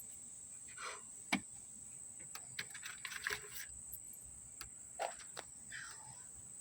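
Faint, scattered clicks and brief scrapes of hand tools and metal latch parts being handled and fitted, over a steady high-pitched whine.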